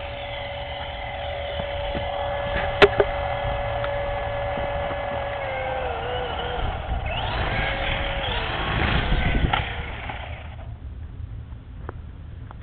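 Small electric motors of a Black Cat toy RC helicopter whining steadily, the pitch dipping about six seconds in, with a sharp click about three seconds in. A louder rushing, fluttering spell follows before the whine dies away near the end. The rotors spin but the helicopter barely lifts, though its battery is freshly charged.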